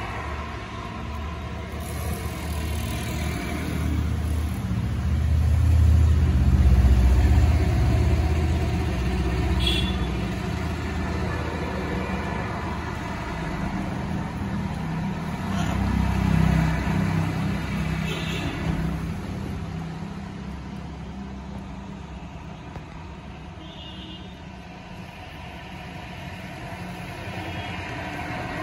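Road traffic: motor vehicle engines rumbling past, the low rumble swelling about six seconds in and again around sixteen seconds.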